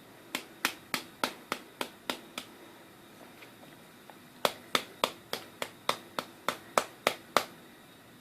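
Light hammer taps on the new copper winding's end turns of a washing machine motor stator, pressing the coils into shape: a run of about eight even taps, a pause, then about eleven more, roughly three a second.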